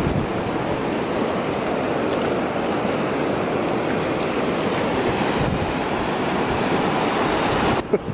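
Shallow ocean surf washing in over wet sand at the water's edge: a steady rushing wash.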